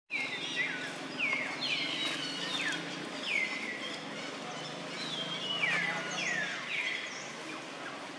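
A run of short, high-pitched animal calls, each falling sharply in pitch, about two a second. They pause for about a second and a half near the middle, then resume.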